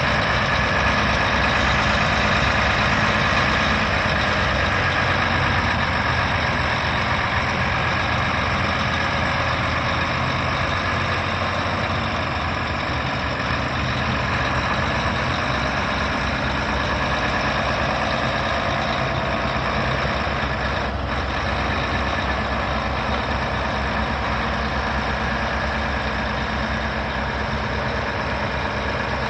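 Mack MP8 12.8-litre inline-six diesel engine of a heavy truck idling steadily.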